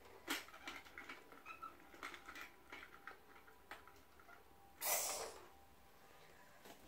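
Faint small clicks, taps and scrapes of plastic toy train cars and track pieces being handled, with one short, louder rushing noise about five seconds in.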